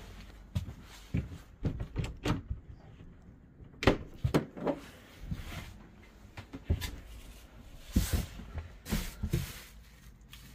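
A run of knocks and clunks from a camper's interior bathroom door being handled and someone moving about in the cramped camper, with plastic film rustling near the end.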